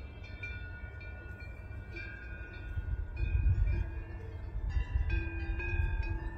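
Several cowbells clanging at irregular moments, their overlapping metallic ringing tones fading between strikes, over a low wind rumble that grows louder about halfway through.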